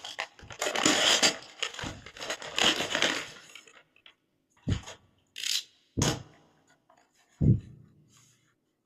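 Earphone packaging being handled and opened: about three seconds of rustling and scraping, then a few separate knocks with a brief scrape between them.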